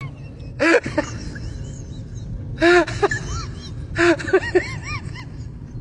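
A person's voice in three loud bursts of short cries, about a second in, near the middle and again a second later, each cry rising and falling in pitch and trailing off in smaller cries, over a steady low rumble.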